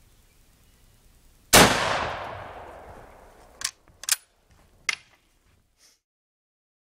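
A single rifle shot from a Polish-made Mosin-Nagant M44 carbine in 7.62×54R about a second and a half in, its report echoing and dying away over about two seconds. Then three sharp metallic clicks as the bolt is worked.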